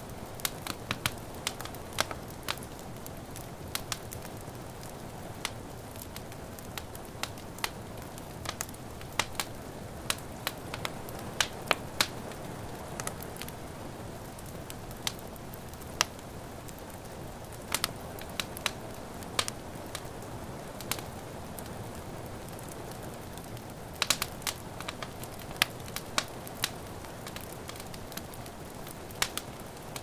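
Wood fire crackling in a fireplace: irregular sharp pops and snaps, with a denser run of them about 24 seconds in, over a steady soft hiss of rain.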